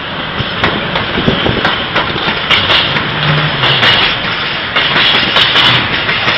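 A DB Siemens Vectron electric locomotive and its container freight wagons passing close by: a steady rumble of wheels on the rails with repeated clicking as the wagons roll over the track.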